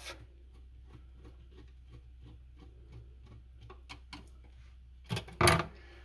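Faint clicks and scrapes of a No. 1 Robertson screwdriver turning a receptacle's terminal screw to loosen the neutral wire, followed by a few louder sharp knocks about five seconds in.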